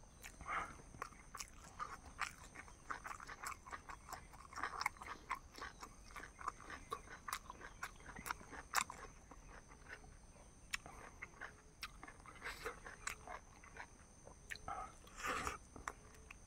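A person eating close to the microphone, chewing and biting with many short mouth clicks and smacks, with a longer, louder burst about fifteen seconds in.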